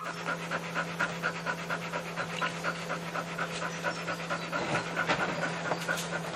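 A dog panting rapidly with its tongue out, about five breaths a second, over a steady low hum.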